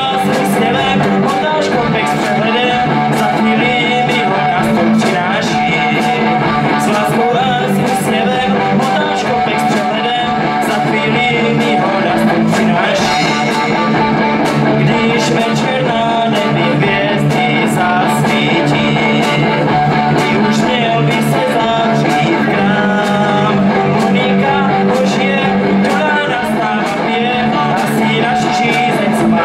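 Live rock band playing a song: a male singer over electric guitars, accordion and a steady drum beat.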